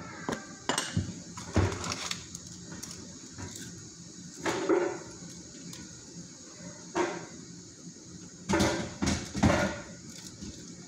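Paper wrapper crinkling and clicking as it is handled, then a few bites and chewing of a breaded chicken burger close to the microphone.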